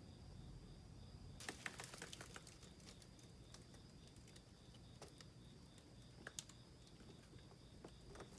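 Faint, scattered small clicks and ticks, with a quick cluster of them about a second and a half in, over a faint steady high-pitched trill.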